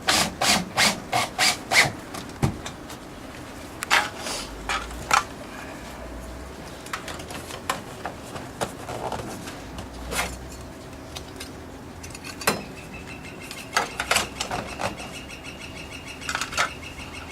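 Installing stainless steel screws into the side of a leaf catcher on a downpipe: a quick run of sharp clicks in the first two seconds, then scattered clicks and scraping, with a faint steady whine near the end.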